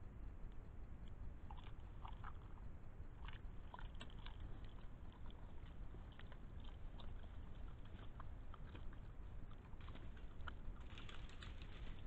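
Wild boar feeding close to the camera: irregular crunching and chewing ticks, in clusters about two to four seconds in and again near the end, over a steady low background rumble.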